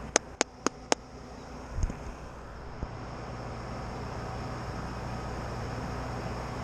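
Five sharp clicks about four a second, a low thump, then a steady low motor hum that grows slowly louder.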